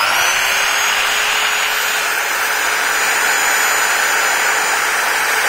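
Bosch GSB 550 impact drill boring a wood bit into an old wooden plank: the motor's whine rises as it spins up at the start, then holds steady at full speed under load.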